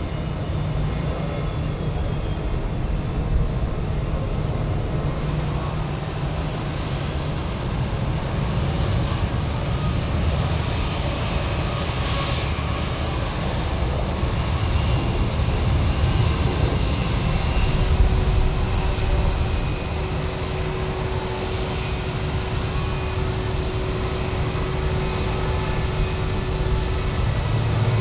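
Jet engines of an Airbus A380 taxiing at low power: a steady low rumble with a faint haze of engine noise above it. A thin steady hum joins a little past halfway through.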